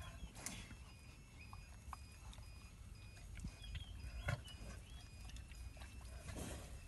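A young rhino snuffling and mouthing at a dog's coat as it grooms it: a few short breathy puffs and soft clicks, faint overall.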